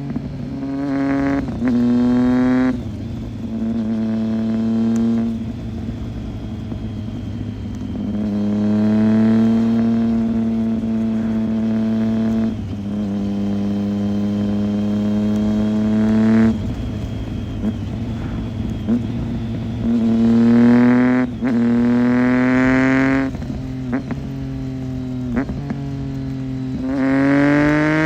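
2008 Triumph Street Triple 675's inline three-cylinder engine through a Roadsitalia aftermarket exhaust, one of its two dB killers fitted, running at varying revs. Several stretches are held at a steady engine speed and then cut off suddenly, and the revs rise near the end.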